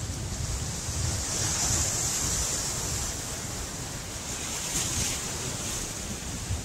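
Pacific Ocean surf breaking and washing ashore, with wind buffeting the microphone; the wash of the waves swells about a second and a half in and again about five seconds in.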